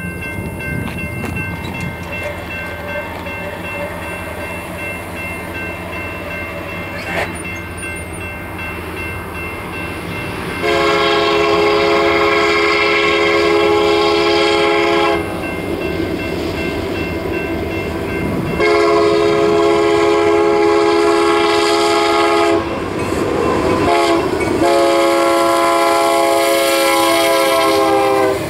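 Approaching Union Pacific freight train: the low rumble of its diesel locomotives, then the lead SD70M's air horn sounding the grade-crossing signal of two long blasts, a short one and a final long blast. The last blast drops slightly in pitch as the locomotives reach the trackside.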